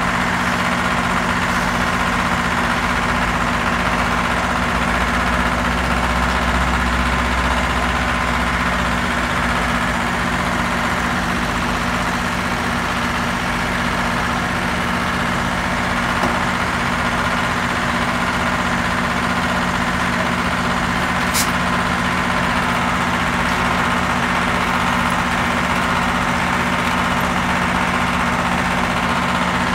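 Heavy diesel engine running steadily at idle, a constant low drone, with one sharp click about two-thirds of the way through.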